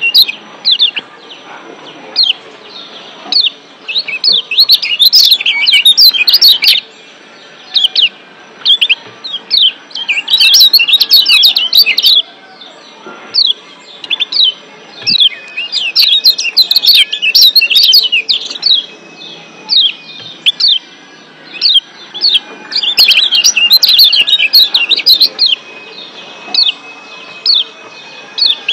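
Lombok yellow white-eye (kecial kuning, a Zosterops white-eye) giving rapid, sharp 'ciak' chirps in excited clusters of a few seconds each, separated by short pauses.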